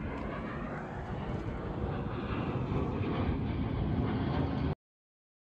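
Steady engine rumble growing a little louder, then cut off abruptly to dead silence about three-quarters of the way through.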